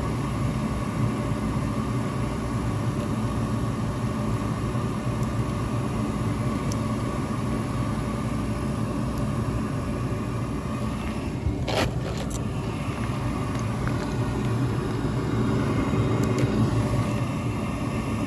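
Steady hum of running machinery with a few steady tones, broken by two sharp clicks about twelve seconds in.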